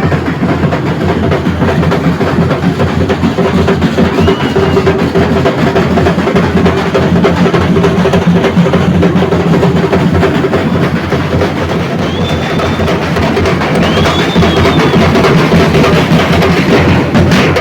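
Bumba-meu-boi percussion group drumming: dense, loud drums with a heavy bass drum, and a few brief high notes sounding over them about four, twelve and fourteen seconds in.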